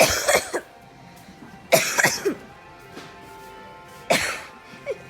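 A person's loud, deliberately hard fake coughing: three coughing fits of several coughs each, about two seconds apart. Background music plays under it.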